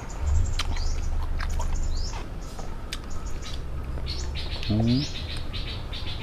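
Birds chirping: repeated short rising chirps, then a quick run of notes about four seconds in. A low rumble sits under them in the first two seconds, and there is a brief low hum from a person near the end.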